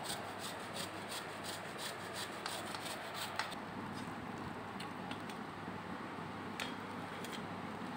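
Raw green banana rubbed hard on a stainless steel flat grater: quick rasping strokes, about three a second, that stop about three and a half seconds in, followed by a couple of light clicks.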